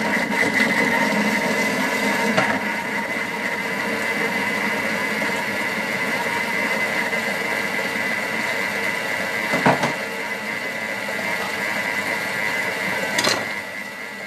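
Thermomix food processor running, whisking wet cake batter: a steady motor whir with a high whine over it. Sharp knocks sound about two seconds in, about ten seconds in, and near the end.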